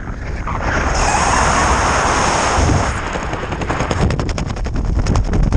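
Airflow under an open ram-air parachute. The wind rushes over the microphone for the first few seconds, then from about three seconds in there is a fast rattling flutter of canopy fabric flapping in the airflow.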